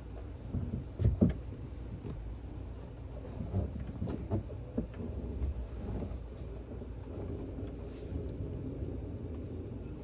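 Thunder rumbling low and steadily, with sharper crackling peaks about a second in and again around four seconds in.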